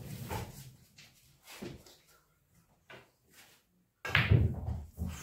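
Pool shot on a billiard table: after a few seconds of quiet, a sudden sharp clack about four seconds in as the cue strikes the cue ball and the balls collide, with a brief burst of sound right after.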